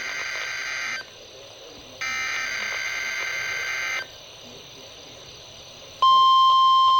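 NOAA Weather Radio SAME header tones: two buzzy digital data bursts, each about two seconds long, one second apart. About six seconds in, the loud, steady 1050 Hz warning alarm tone starts, activating receivers for a test of the weather radio warning alarm.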